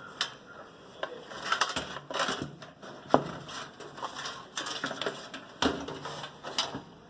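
Irregular clicks, knocks and rustling from computer hardware being handled, with one sharper knock about three seconds in.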